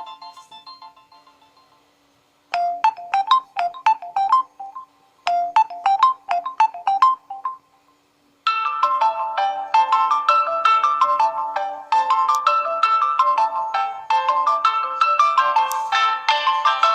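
Nokia Lumia 925 stock ringtones playing one after another. An earlier tune fades out, then a short bright melodic phrase plays twice with a pause between. A little past halfway a busier, fuller ringtone melody starts and keeps going.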